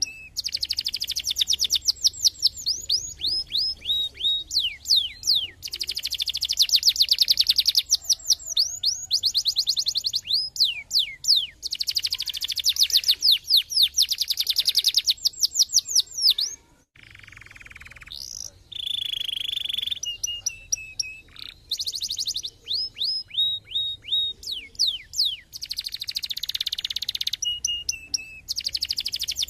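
Domestic canary singing: phrase after phrase of rapid trills made of quick downward-sweeping whistled notes, with a short gap about halfway through before the song resumes.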